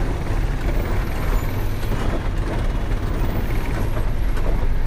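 Tata 3118 truck's diesel engine running, with road noise, heard from inside the cab while driving.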